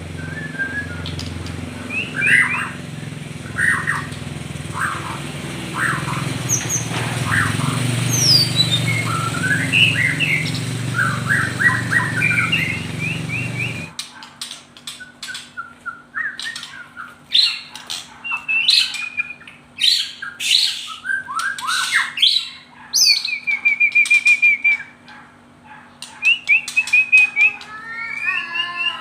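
A songbird chirping and calling in quick, repeated short notes and trills, with pauses between phrases. A steady background noise stops abruptly about halfway through, leaving the bird calls over a faint low hum.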